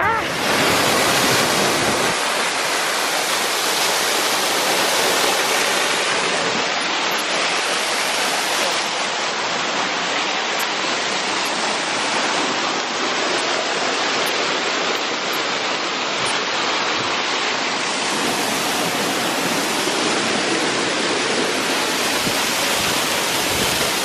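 Steady rushing of a small mountain waterfall at low autumn flow, its water splashing onto rocks.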